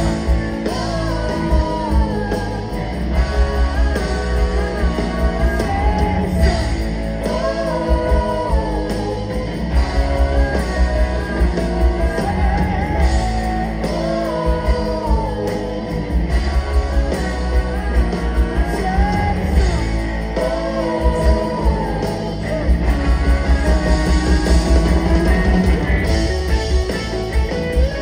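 Live rock band playing with lead and backing vocals over electric guitars, bass, keyboards and drums, picked up from the audience through the PA. The band gets a little louder about two-thirds of the way through.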